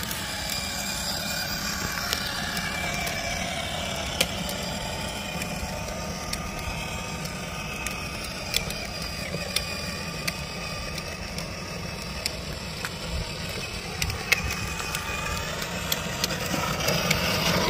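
Battery-powered 6-volt ride-on toy ATV driving along: a steady whir from its small electric motor and gearbox over the low rumble of hard plastic wheels rolling on asphalt, with scattered small clicks.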